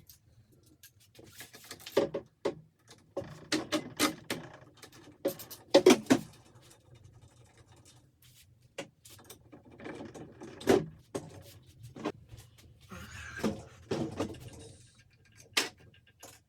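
Irregular knocks, clinks and rubbing from hand tools and engine parts being handled during mechanical work, with a few louder knocks around two, six and eleven seconds in.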